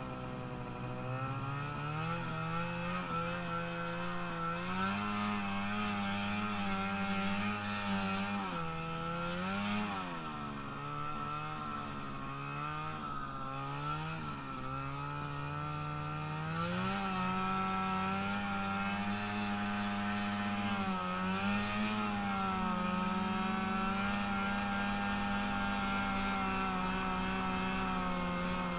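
A freshly rebuilt small vehicle engine running under way, its pitch dropping and rising several times with the throttle in the middle, then holding a steady, higher speed for about the last ten seconds.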